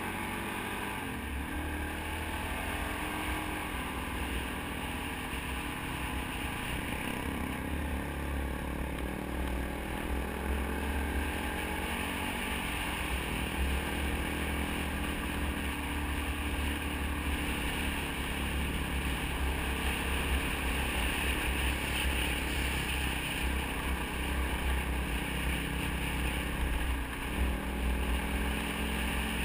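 Dirt bike engine running under way, heard from on board, its note rising and falling with the throttle.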